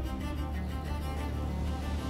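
Background music with a sustained low note under steady higher tones.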